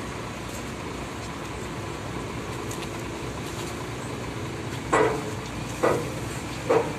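Steady harbour background noise with a vehicle-like rumble, broken near the end by three short, loud bursts about a second apart.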